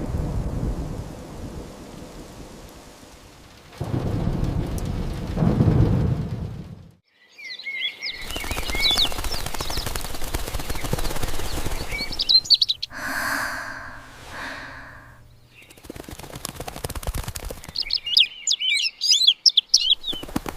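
Thunder rumbles over heavy rain, swelling twice in the first seven seconds. After a brief drop, steady rain continues while birds chirp in quick high twitters, with a longer pitched animal call in the middle and another burst of bird chirping near the end.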